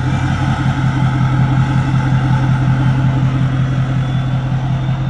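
A 2008 Ford F-250 Super Duty's 6.4-litre Power Stroke V8 turbo-diesel idling steadily with an even, pulsing beat, right after being started.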